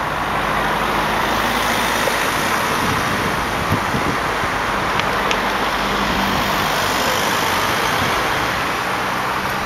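Scania T V8 truck with open exhaust running as it drives away, heard as a low engine note under a steady hiss of road and wind noise.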